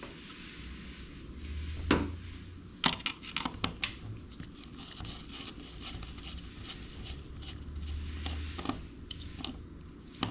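Clicks, taps and scrapes of small metal parts being handled as a battery cable's ring terminals are fitted onto the studs of a fuse box and a circuit breaker. A loud click about two seconds in, then a quick run of taps a second later.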